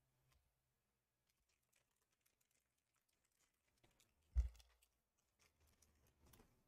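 Near silence with faint clicks and rustles of hands handling trading cards and a foil booster pack on a playmat, and one short thump, the loudest sound, a little past the middle.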